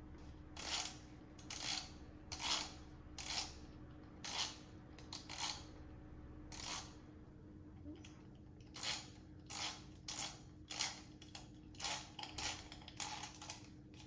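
Timemore C3 ESP hand grinder's grind-adjustment dial being turned counterclockwise by hand in a series of short twists, each a brief mechanical rasp. This unscrews the dial so the burr can be taken out.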